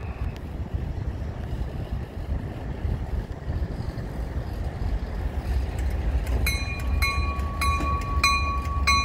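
Diesel locomotive rumbling low as it rolls in slowly. About six and a half seconds in, a bell starts ringing in steady strikes, about one and a half a second.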